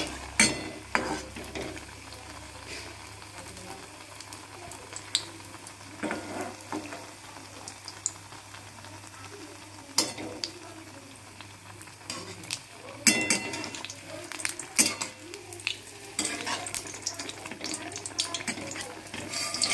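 Malpua fritters deep-frying in hot oil in a kadai, a steady sizzle, with a slotted metal spatula clinking and scraping against the pan now and then; the sharpest clinks come about ten and thirteen seconds in.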